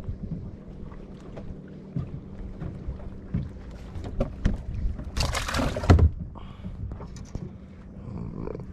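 Handling noises aboard a small fishing boat: scattered light knocks and clunks over a steady low hum, with one short, loud rushing burst about five seconds in.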